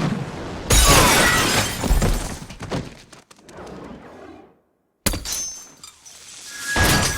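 Movie sound effects of a crash: glass shattering and debris breaking about a second in, then dying away. After a moment of dead silence comes another sudden hit, and a low rumble builds near the end.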